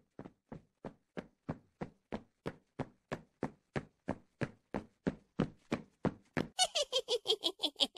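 Cartoon footstep sound effect: evenly spaced steps, about three a second, growing louder as they approach. Near the end they speed up to about five a second and take on a ringing, pitched edge.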